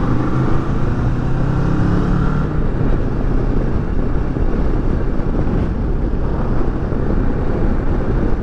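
Kawasaki Versys 650's parallel-twin engine running at road speed, mixed with wind and road noise on the microphone. A steady engine tone stands out for the first two seconds or so, then blends into the rush of wind.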